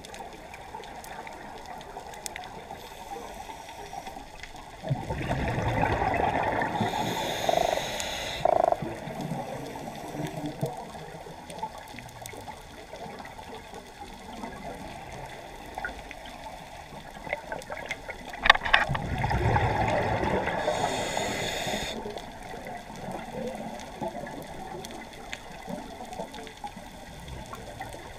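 Scuba diver breathing through a regulator underwater: two breaths about thirteen seconds apart, each a rush of bubbles with a hiss, over a faint steady background with small clicks.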